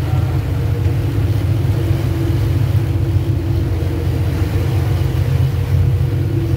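Fishing boat's engine running steadily under way while trolling: a loud, even low drone with a steady hum above it.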